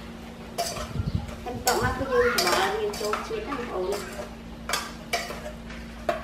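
A metal ladle stirring thick chicken stew in a stainless steel pot, scraping and clinking against the pot in repeated strokes. A brief wavering tone sounds in the middle.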